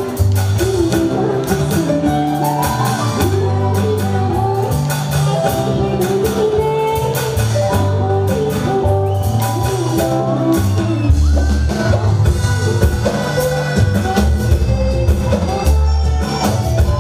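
Live amplified band music: a woman singing into a microphone over bass guitar and drum kit. About eleven seconds in the bass drops lower and gets heavier.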